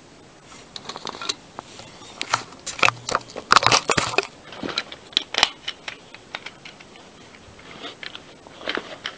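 Handling noise: a dense run of sharp plastic clicks and rattles, loudest a few seconds in, thinning out to a few scattered clicks near the end.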